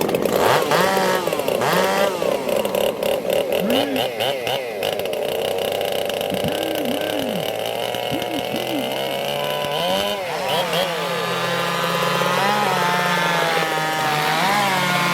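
Two-stroke racing chainsaws running, their engines revved up and down in repeated short throttle blips, then settling into a steadier run in the second half.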